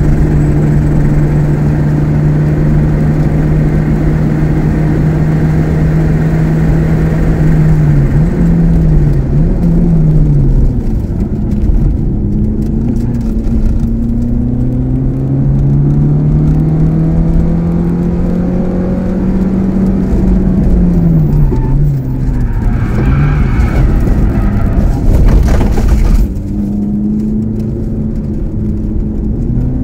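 Onboard sound of a 1984 Opel Ascona C's 2.0-litre C20NE eight-valve four-cylinder engine driven hard on a race track. The revs hold high and steady, then dip with quick blips on downshifts about eight to ten seconds in, and climb steadily under acceleration. Around twenty seconds in the revs fall and waver and a few seconds of harsher rushing noise rise over the engine, before it pulls again near the end.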